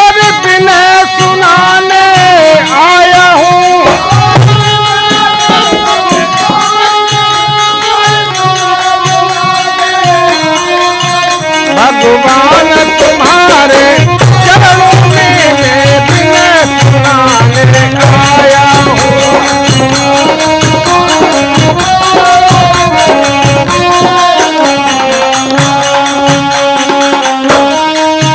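A harmonium plays a folk bhajan melody in held, stepping notes over dholak drumming. A fast, steady jingle of hand cymbals keeps the beat.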